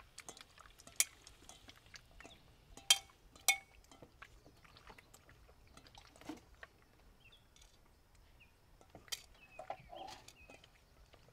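Hands working cubed raw beef in a stainless steel mixing bowl, with a few sharp metallic clinks against the bowl in the first few seconds and small scattered ticks after.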